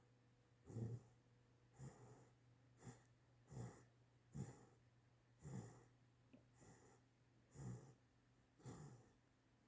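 Eight-week-old Great Dane puppy snoring faintly in its sleep: short snoring breaths, about one a second.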